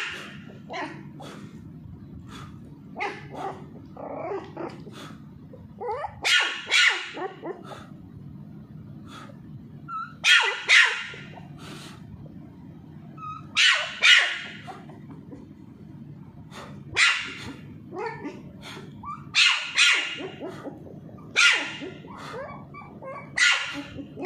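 Small white spitz puppy barking in short, sharp yaps every three or four seconds, often two in quick succession, while being teased and played with.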